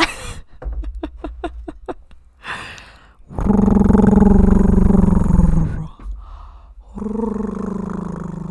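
A dog makes two low, drawn-out groaning calls close to the microphone: a loud one lasting about two seconds, then a shorter one that falls in pitch at the end. The calls follow a run of soft clicks.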